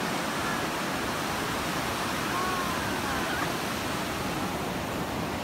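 Ocean surf breaking and washing up onto the beach: a steady rushing noise.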